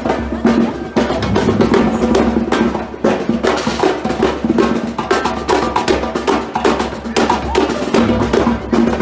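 Drum troupe playing blue drums with sticks: a fast, dense rhythm of sharp strikes and stick clicks, with a steady low tone beneath.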